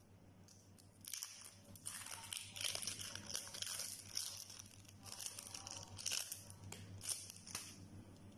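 Hands tearing and crumbling a piece of cheese apart, making irregular crackly rustles that start about a second in.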